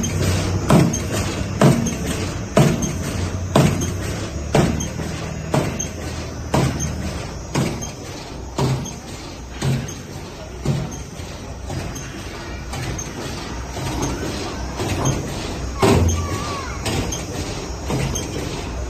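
Industrial sewing machine for stone wool felt running over a steady low hum, with a heavy knock about once a second from its stitching stroke. The knocks fade and turn irregular about halfway through, and one strong knock comes near the end.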